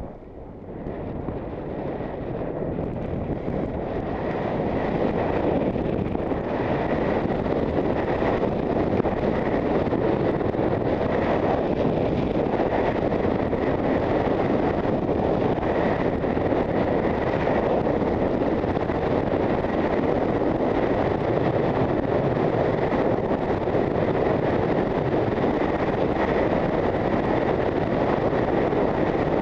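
Wind rushing over a helmet camera's microphone as a skier gathers speed downhill. It builds over the first few seconds, then holds steady.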